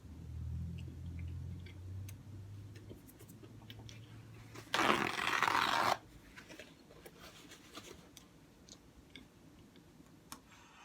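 Close-up chewing of a bacon, egg and cheese croissant sandwich, with small wet clicks and crunches. About five seconds in, a loud rushing noise lasts just over a second.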